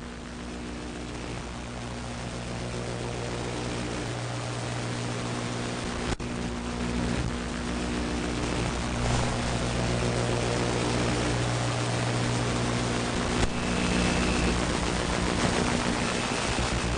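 Sound-design drone: a steady low hum under a wash of hiss, slowly growing louder, with a faint high tone sounding twice near the end.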